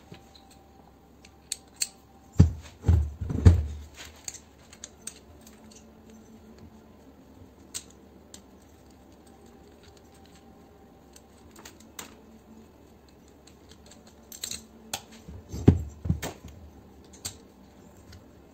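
Hand dismantling of an electric pressure washer's motor and pump unit on a metal workbench: scattered clicks and clinks of metal parts and hand tools, with two bursts of heavy knocks, a couple of seconds in and again near the end, as the unit is moved on the bench.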